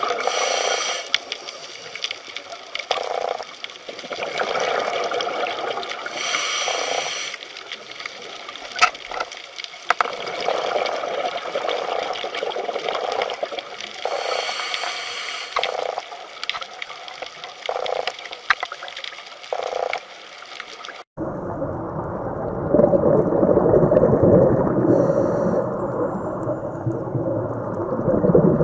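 Underwater ocean ambience: bubbling, gurgling water in uneven swells, then about two-thirds of the way through an abrupt cut to a duller, muffled deep-water sound.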